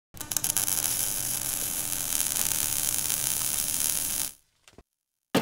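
Title-intro sound effect of crackling electrical static over a steady low hum. It fades out about four seconds in, and after a second of silence the crackling starts again at the very end.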